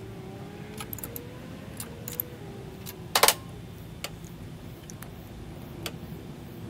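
Scattered light clicks and knocks of hands handling the spark plug leads and boots on an outboard motor's powerhead, with one sharper, louder clack about three seconds in.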